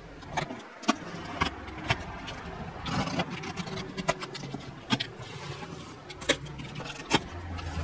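A knife slitting packing tape on a cardboard box, then the box being handled and its flaps pulled open. It sounds as scattered sharp clicks and ticks over scraping and crinkling of card and tape, with a longer scraping patch about three seconds in.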